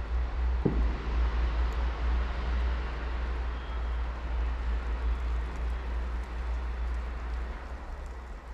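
A vehicle engine running with a heavy low rumble, easing off near the end, with a single sharp click about a second in.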